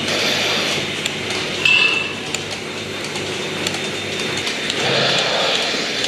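Milking parlour machinery running steadily, a mechanical hum with light clinks of metal and a short high squeak about two seconds in.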